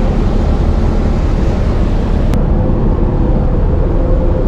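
Steady rumble and rush of a ship under way, heard on the open stern deck over the churning propeller wash, with wind on the microphone. One short tick about halfway through.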